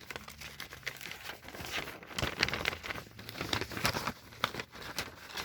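Paper instruction manuals being folded up by hand: an irregular run of quick paper rustles and crackles.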